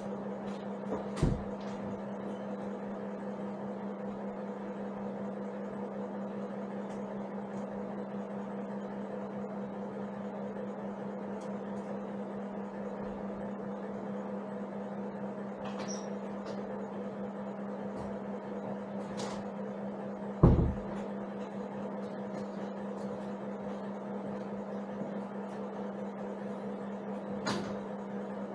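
A steady low electrical-sounding hum with a few scattered knocks and clunks of handling, the loudest about twenty seconds in.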